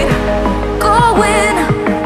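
Background music: an electronic instrumental with a wavering melody line and short falling pitch slides about every half second.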